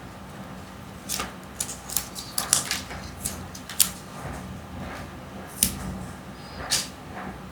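Kinder Joy plastic packaging being handled and opened: a run of sharp clicks and crinkles, thickest in the first half, then a couple of isolated clicks.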